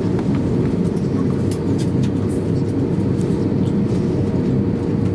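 Cabin noise inside an Airbus A350-900 taxiing: a steady low rumble of its Rolls-Royce Trent XWB engines at taxi power and its wheels rolling on the taxiway, with a faint steady tone above it and scattered light clicks.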